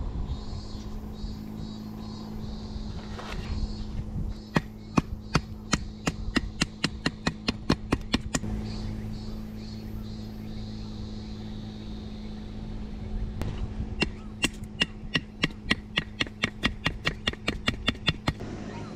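A wooden baton knocking on the spine of a Belmont Yamato BM-164 stainless field knife to drive it down through a split of firewood. The sharp knocks come in two runs, the second, near the end, quicker at about three a second.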